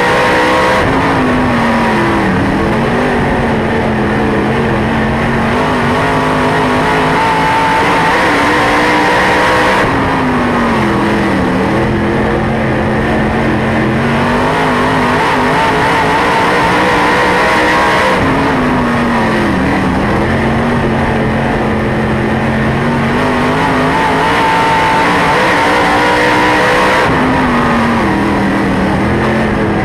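Dirt late model race car's V8 engine at racing speed, heard from inside the car. Four times, about every eight to nine seconds, its pitch dips briefly and climbs back as the driver lifts off for the turns and gets back on the throttle.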